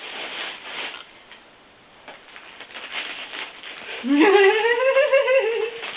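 Breathy rustling, then about four seconds in a person's voice holds one long drawn-out note, rising slightly and then sliding down, without words.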